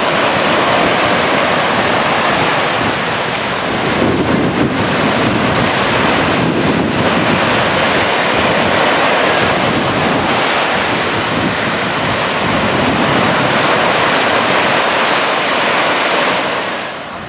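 Surf breaking and washing in a steady loud rush, with wind buffeting the microphone.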